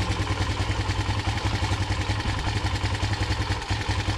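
2005 Polaris Predator 500's single-cylinder four-stroke engine idling steadily while still cold, running on fresh oil after an oil change.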